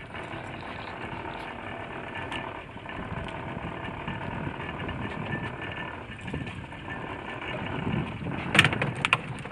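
Small boat's outboard motor running steadily at trolling speed. Near the end, a quick run of sharp knocks and rattles.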